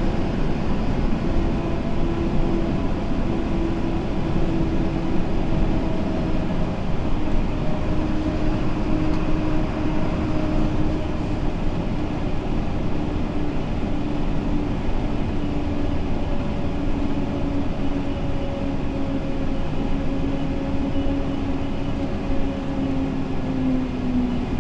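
Steady engine and road rumble of a moving vehicle, heard from inside its cab. A faint drone runs through it and sinks slightly in pitch near the end.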